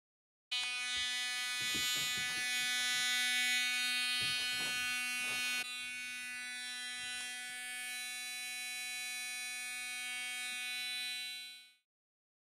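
Battery-operated toothbrush buzzing steadily with a high-pitched electric hum, with a few faint knocks in the first half. The buzz drops slightly in level about five and a half seconds in and cuts off near the end.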